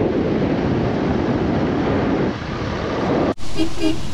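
Wind rushing over the microphone with the road noise of a vehicle driving along, a steady dense rumble. It cuts off suddenly a little after three seconds in, and a short voiced sound follows.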